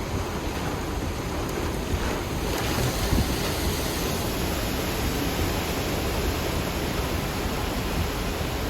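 Strong wind rushing over the microphone, a steady even roar with no breaks.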